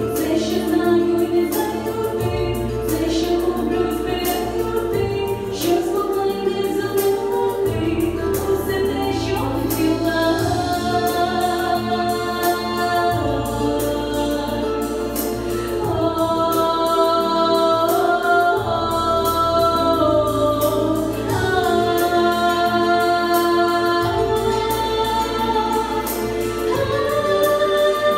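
A young woman sings a slow song into a microphone, holding long notes over an instrumental accompaniment with a steady beat and bass.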